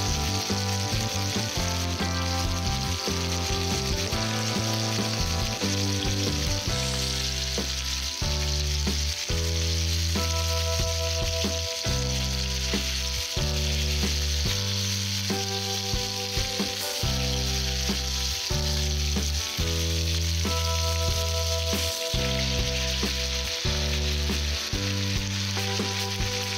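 Chicken drumsticks frying in a nonstick pan, sizzling steadily as they sear and are turned, under background music with sustained low notes.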